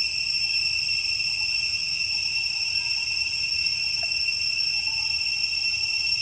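Steady, unbroken high-pitched drone of insects, such as cicadas or crickets, calling in the jungle.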